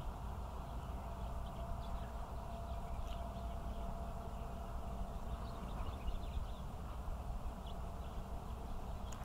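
Canada goose goslings peeping in short, faint, high notes scattered irregularly, over a steady low rumble.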